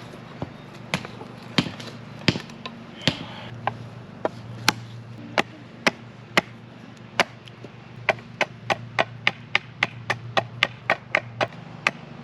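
A tool striking wood again and again, sharp single knocks. They come at a scattered pace at first, then as a quicker, regular run of about three to four strikes a second for the last third.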